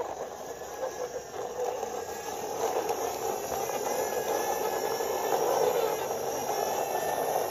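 Plastic toy fire truck pushed back and forth by hand across a rough floor, its wheels making a steady rolling noise that grows a little louder after the first couple of seconds.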